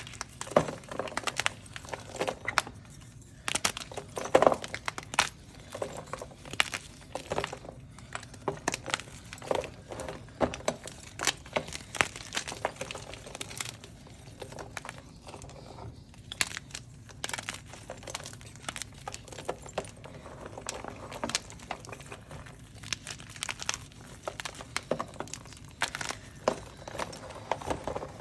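Hard blocks of dyed gym chalk being crushed and crumbled by hand, a close, irregular run of crunches and crackles with brief lulls.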